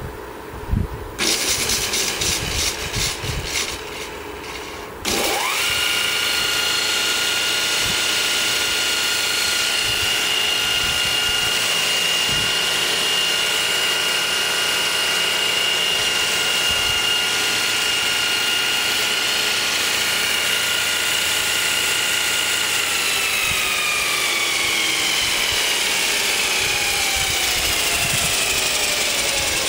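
Baldor 248-153TD belt sander's electric motor spinning up about five seconds in, after a few knocks and a hiss, then running at speed with a steady high whine. Near the end it slows down, its whine falling steadily in pitch as it coasts.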